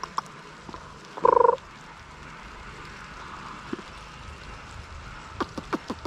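Steady hiss of light rain, broken about a second in by one short, loud, rapidly pulsed buzzing sound, and by a few sharp ticks near the end.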